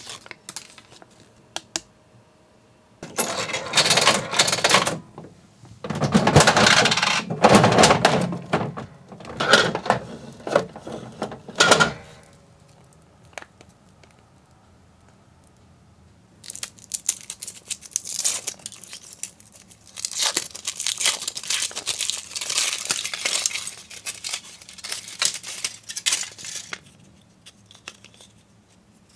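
Close-up crinkling and clattering of paper and foil in two bouts several seconds long. In the second bout the foil wrapper is peeled off a Choco Egg chocolate egg and its chocolate shell is broken open.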